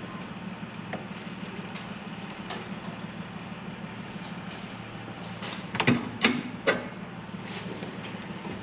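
Three sharp knocks, a little under half a second apart, from tools and parts being handled during work under the car, over a steady low hum.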